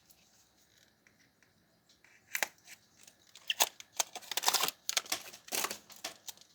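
Near silence for about two seconds, then scattered crinkling, rustling and clicks of a gummy-candy box and its wrapper being handled and opened.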